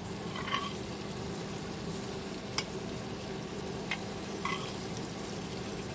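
Carrots and onions sizzling steadily in oil in a frying pan as they are scooped out with a slotted spatula, with a few brief sharp clicks of utensil against the pan.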